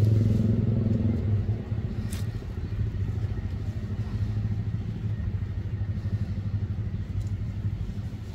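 A motor engine running steadily with a low hum, louder for about the first second and then settling lower. A sharp click comes about two seconds in.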